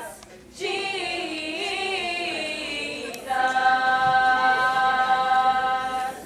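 Unaccompanied singing: a wavering melodic phrase, then from about three seconds in a long held note that breaks off just before the end.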